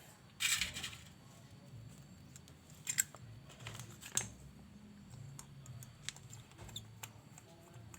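Faint clicks and light scrapes of small metal carburetor parts and tools being handled during cleaning, with a short hiss about half a second in.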